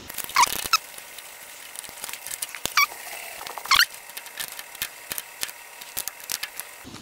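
Small metal clicks and brief squeaks as washers and nuts are fitted onto the terminal studs of a milliamp gauge and tightened with a small wrench.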